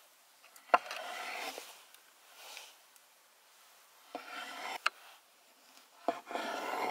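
Cleaver slicing through cherry tomatoes on a wooden cutting board: three crisp cuts, each with a sharp knock of the blade meeting the board, and a fainter scrape between the first two.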